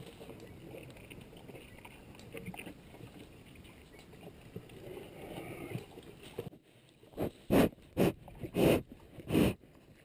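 A lion feeding at a carcass, with low rustling and tearing of the kill for the first six seconds, then about five short, loud growls from a lion with its muzzle right at the microphone, in the last three seconds.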